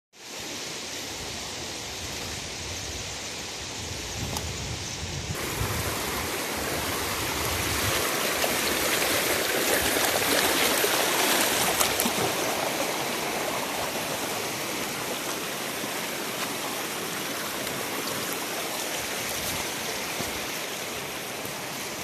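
Shallow rocky river running over stones: a steady rush of water, which changes abruptly about five seconds in, with a low rumble before that, and is loudest around the middle.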